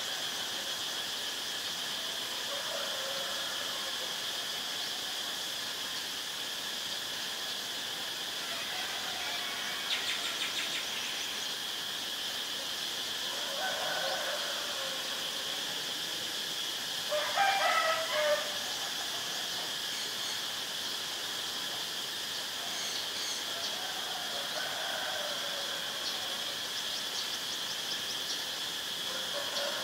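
A steady, high-pitched insect drone. Over it, a distant bird calls about seven times, most like a rooster crowing; the loudest call comes about two-thirds of the way through.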